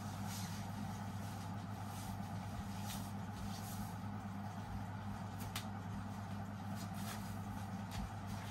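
A steady low hum with a faint hiss, broken by a few faint soft clicks or rustles.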